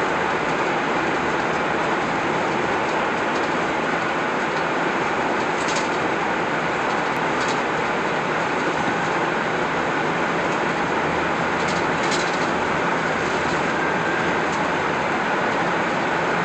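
Steady rushing road and tyre noise of a car driving at highway speed through a road tunnel, with a few faint ticks.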